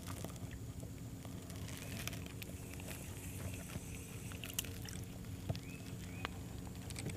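Spinning reel being wound in on a bent rod to bring up a small catch, with scattered light clicks and ticks, over a steady low hum.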